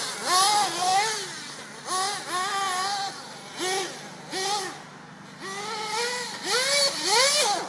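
Small nitro glow engine of a radio-controlled buggy revving up and down in short throttle bursts: about ten rising-and-falling whines in quick succession.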